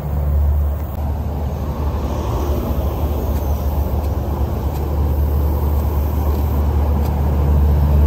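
Steady rumble of highway traffic, cars and trucks going past.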